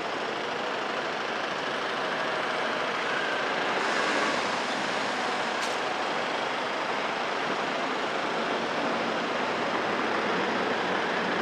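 Steady, even noise of heavy diesel vehicles and traffic, including a dump truck pulling away, with no clear engine note standing out.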